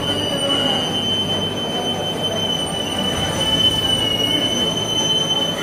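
Steel wheels of a freight train squealing on the rails: one steady high-pitched tone over the low rumble of the moving wagons.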